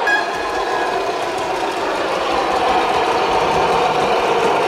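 Gauge 1 model train running along the track: a steady running sound from its motor and its wheels on the rails.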